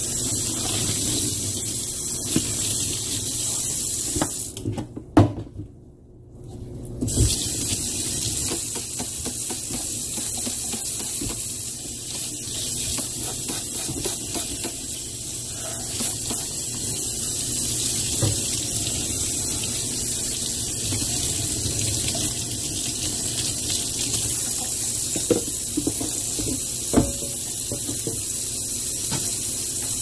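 Kitchen tap running into a stainless steel sink and splashing over dirty vacuum cleaner parts being rinsed under it. The flow stops for about two seconds about five seconds in, then runs on, with a few light knocks of the parts against the sink.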